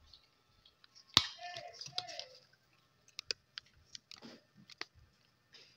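Sharp, scattered clicks of a dog eating dry kibble at a stainless steel bowl on a tile floor, with one louder knock about a second in.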